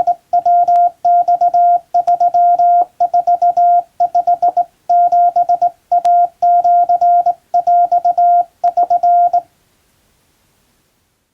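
Hand-sent Morse code from a Japan Radio Co. telegraph key, a steady beep of about 700 Hz keyed into dots and dashes in groups with short pauses between them. The sending stops about nine seconds in.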